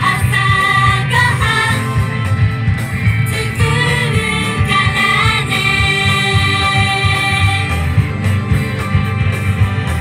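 Female pop vocal group singing in unison into handheld microphones over upbeat recorded backing music, amplified through a PA system.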